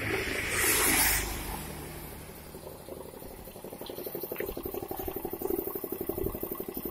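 Compressed air hissing from an air-compressor blow gun in a short blast of about a second near the start, blowing leftover old oil out of a motorcycle engine's oil drain, then dying down.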